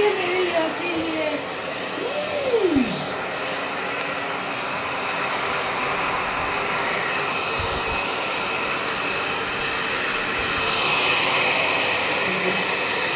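Handheld electric hair dryer blowing steadily into a dog's wet fur, a continuous rushing hiss with a thin high whine joining about seven seconds in.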